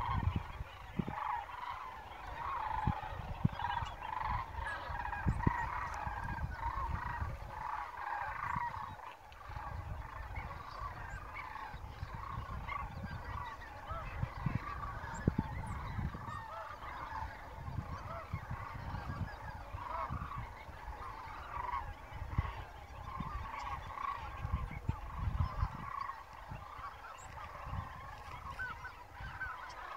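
A large flock of wild geese calling, with many honks overlapping into a continuous chorus.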